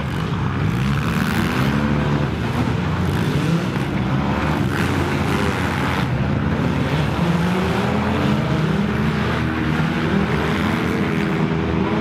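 Several demolition derby cars' engines running and revving at once, their pitches rising and falling against each other as the cars drive and reverse in the pack.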